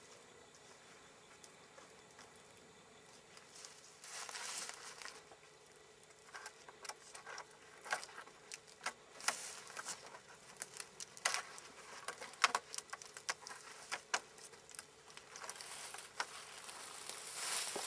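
Rustling, scraping and small sharp crackles of a vine lashing being wrapped and pulled tight around crossed wooden poles, gloved hands working the wood. Quiet for the first four seconds, the handling noise starts about four seconds in and comes in irregular bursts of clicks.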